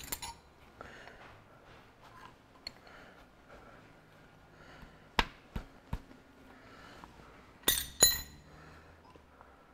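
Metal clicks and clinks from spanners and engine parts being handled at a diesel engine's injectors: a sharp click at the start, three light taps about halfway, and a louder ringing double clink near the end.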